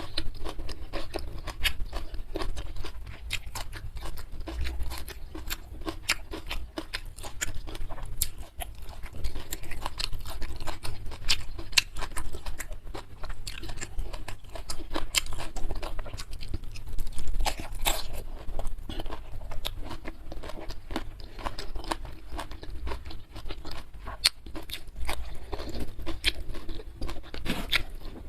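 Close-miked chewing and crunching of food, a dense, continuous run of sharp crunches and mouth clicks.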